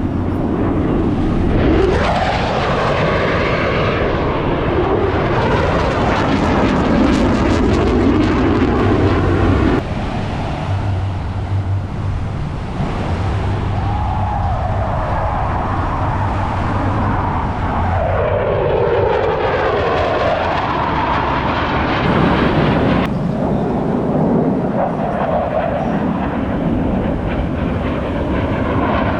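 Blue Angels F/A-18 Super Hornet fighter jets flying past with their twin turbofan engines running loud, the jet noise sweeping up and down in tone as they pass. The sound changes abruptly about ten seconds in and again a little after twenty seconds.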